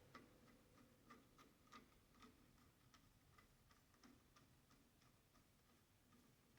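Faint, regular clicking, about three clicks a second, as a Phillips screwdriver turns a screw in.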